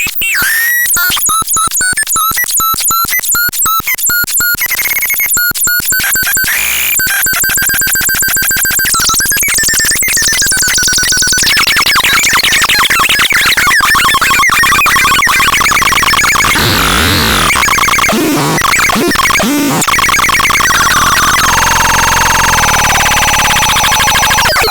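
Rozverné koťátko synthesizer making harsh electronic noise: a fast stuttering buzz with pitched tones for the first half, turning into a dense, noisy wash with wavering pitch glides, and a high steady tone held over the last few seconds.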